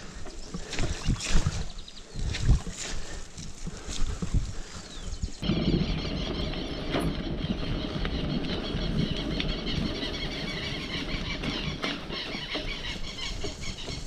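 Mountain bike riding over a rough, wet dirt road: irregular rattling knocks and wind on the microphone. About five seconds in it cuts to a steadier rolling noise with a faint high squeal.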